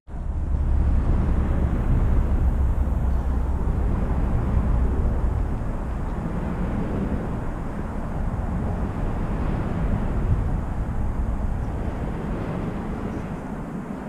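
Steady outdoor background rumble, deepest in about the first five seconds and easing after.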